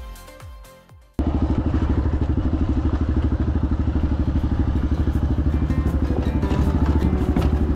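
Background music fades out over the first second, then a Yamaha XT250's single-cylinder four-stroke engine starts sounding abruptly and runs steadily with rapid, even firing pulses.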